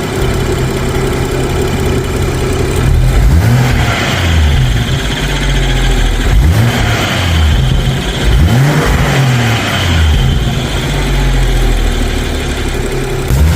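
BMW 335i N55 turbocharged inline-six running and being revved up and down about five times, settling back to idle between revs. A squeal comes from the belt and pulley area at the front of the engine.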